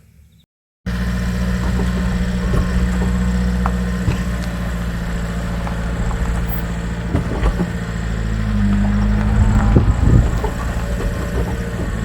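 Subaru Sambar kei van's engine running steadily, with road drone and a few light clicks. The sound cuts in suddenly about a second in, and the engine note rises slightly around nine seconds in.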